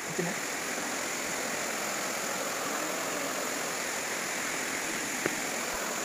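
Steady rush of running water from a forest stream, with one faint tick a little after five seconds in.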